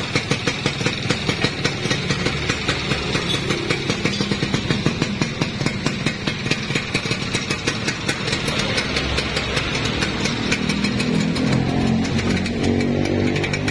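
Yamaha F1ZR two-stroke single-cylinder engine, bored out to about 116 cc, running with a pulsing, uneven snoring beat ("ngorok"). From about nine seconds in, the beat smooths into a steadier, slightly louder note as the revs come up a little.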